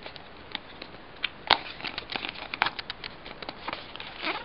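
Small cardboard Arduino Uno box being pried open by hand: scattered crinkling and scraping of card and paper, with a sharper snap about a second and a half in.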